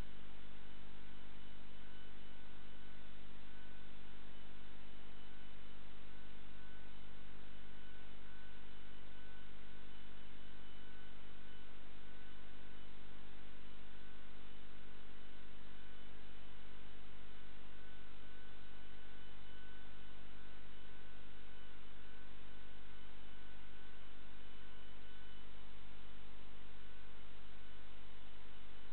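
Steady electrical mains hum with a faint high whine, unchanging throughout, with no ball strikes or other events.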